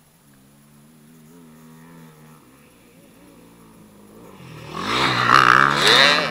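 Sport quad (ATV) engine approaching from a distance with its revs rising and falling, getting much louder and passing close by about five to six seconds in.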